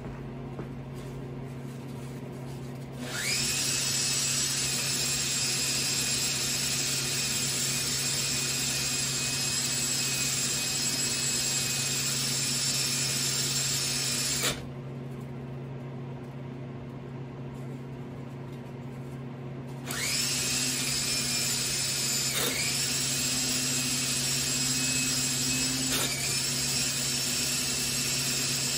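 Electric drill running steadily, spinning an electric motor's armature in a homemade turning rig while its scratched shaft is sanded clean. It runs for about eleven seconds, stops, then runs again for about nine seconds with two brief dips in speed.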